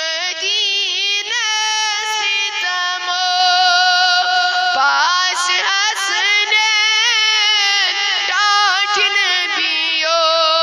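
A solo voice singing a Kashmiri naat, a devotional song in praise of the Prophet, in long held notes with wavering ornaments and pitch slides.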